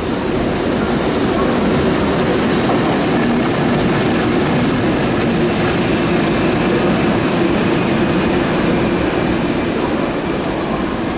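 Electric freight train headed by a JR Freight EH500 locomotive passing at close range: a loud, steady rumble of wheels on rail with an electric hum, and a brief high hiss about two seconds in.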